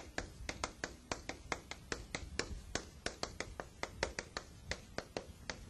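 A quiet, irregular run of light clicks and taps, about six a second, with no speech.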